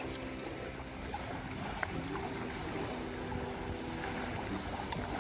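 Seaside ambience: a steady rush of wind and water at the shore.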